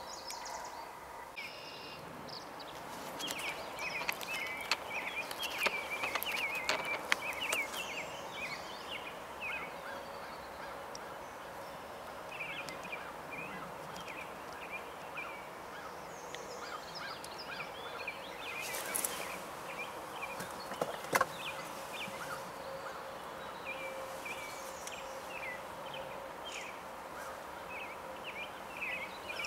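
Many short bird calls and chatter from several birds, densest a few seconds in and again near the end, over a faint steady hum.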